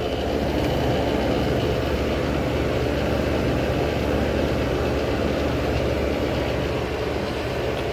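Old General Electric Carry-Cool air conditioner running steadily: a constant low hum with the rush of its fan.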